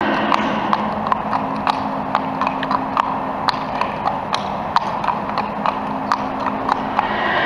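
Hooves of a walking Quarter Horse mare striking asphalt, about two or three sharp clip-clops a second. The mare is lame in the right hind and reluctant to bear weight on that limb.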